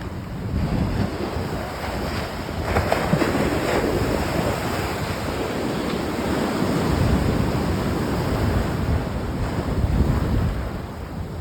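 Ocean surf washing in and out, its noise swelling a few times, with wind buffeting the microphone.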